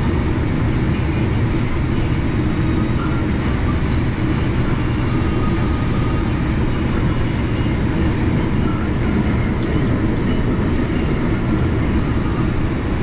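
Case IH 2388 combine running steadily under load as its corn head feeds standing corn, heard from inside the cab: a constant drone of engine and harvesting machinery.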